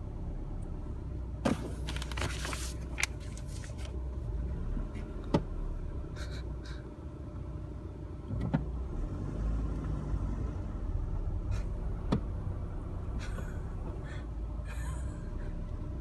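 Car engine running low and steady, heard from inside the cabin, with a few sharp clicks and a short rustle about a second and a half in.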